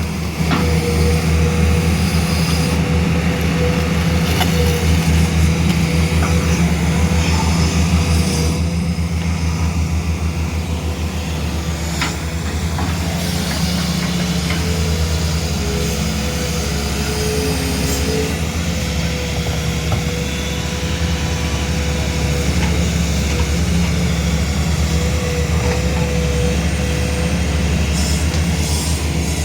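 Diesel engine of a 21-tonne hydraulic excavator running steadily, a low even hum with a thin steady tone above it and a few faint knocks.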